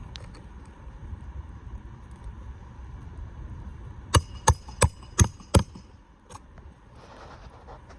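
Hammer driving roofing nails into a replacement asphalt shingle: five quick, ringing strikes about three a second a little past halfway, then one lighter tap.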